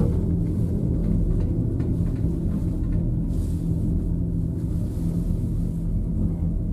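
Steady low rumble and hum inside an IMES cabin of a two-seat fixed-grip gondola as it travels down the haul rope.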